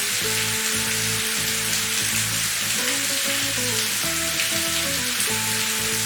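A steady, dense hiss with faint crackles, over soft background music with plucked notes.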